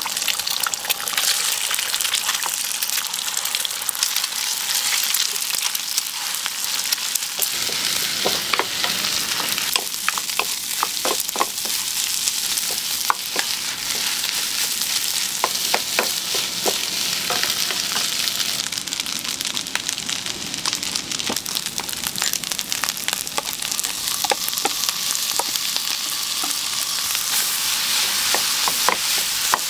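Fried rice sizzling loudly in a hot pan, the hiss beginning suddenly as the food hits the metal. From about seven seconds in, a metal spatula taps and scrapes repeatedly against the pan as the rice is stirred and tossed.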